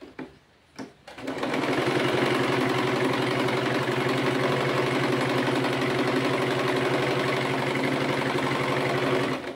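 Singer Promise portable electric sewing machine running steadily at speed, stitching a gathered ruffle seam, with a fast even needle rhythm. It starts about a second in after two short clicks and stops just before the end.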